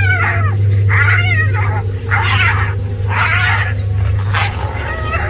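Spotted hyena squealing in distress, caught in a fight with lions: a string of wavering, high-pitched cries about once a second over a low steady hum.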